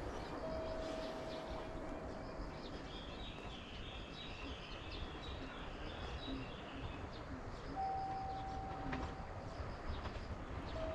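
Steady low rumbling background noise with birds chirping, and a few held single-pitch whistle-like tones of about two seconds each, one near the start and one about eight seconds in.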